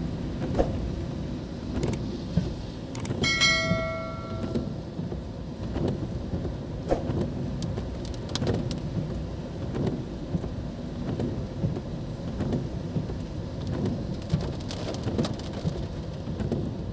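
Heavy rain falling on a car's roof and windscreen, heard from inside the cabin: a steady rushing noise with scattered sharp drop taps. About three seconds in, a short bell-like chime rings out and dies away within about a second and a half.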